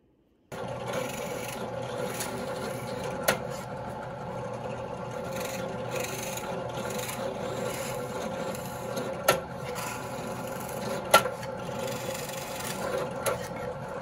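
Benchtop drill press running steadily, its bit cutting holes through a plywood bulkhead, with a few sharp clicks along the way.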